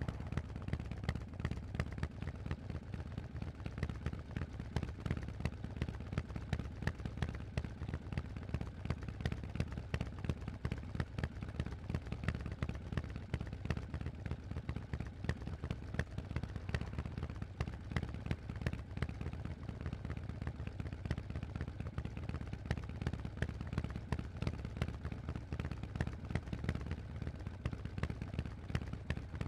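Harley-Davidson Forty-Eight's air-cooled 1200 cc V-twin running through Vance & Hines aftermarket exhausts, a deep, rapid train of exhaust pulses. The engine speed stays fairly steady, with no big revs.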